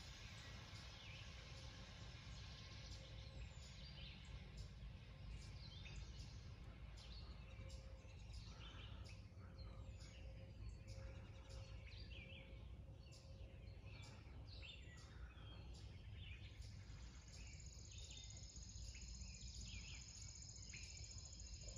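Quiet woodland ambience: birds chirping over and over above a low steady background rumble. Near the end a high, steady trill joins in.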